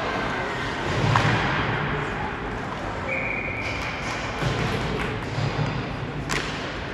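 Ice hockey play in an arena: skates scraping and sticks and puck knocking on the ice, with a sharp crack about a second in and another near the end. A short referee's whistle about three seconds in stops play.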